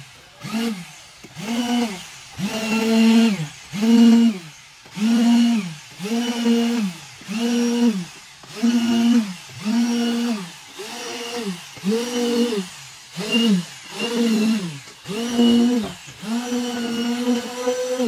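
Concrete poker vibrator working fresh concrete in beam formwork, its motor note rising, holding and falling away about once a second, with a longer steady run near the end.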